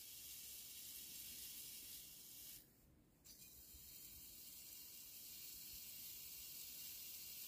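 Near silence: a faint steady hiss of room tone, cut out completely for about half a second a little before the middle.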